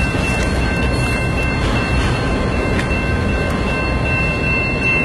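Canadian National freight train rolling past close by: a loud, steady rumble of autorack cars with occasional clicks from the wheels, and a thin, steady high-pitched squealing from the wheels over it.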